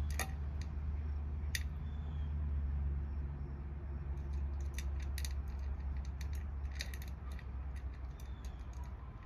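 Cat eating from a bowl: scattered small clicks and ticks of chewing and the bowl, over a steady low rumble that fades toward the end.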